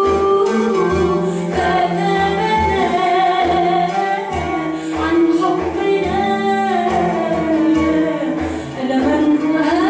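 A woman singing a slow melody with long held, gliding notes, backed by an oud and a drum that keeps a steady low beat.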